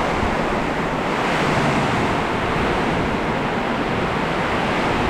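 Storm wind driving heavy rain sideways in a steady, loud rush, with wind buffeting the microphone.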